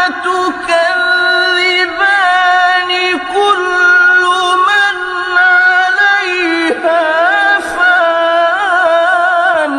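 A male Quran reciter chanting in long, drawn-out melismatic phrases. The high voice holds notes with wavering ornaments and slides between pitches.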